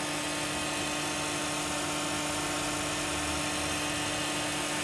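TOS BHU 25 universal cylindrical grinder running, a steady machine whir with a single constant tone.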